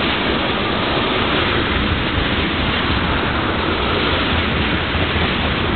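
Tank cars of a freight oil train rolling past close by: a steady rush and rumble of steel wheels on the rails.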